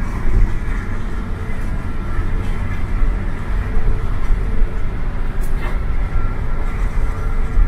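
Steady low rumble of a Hino coach's engine and road noise, heard from inside the cabin while cruising at highway speed, with a single light click about five and a half seconds in.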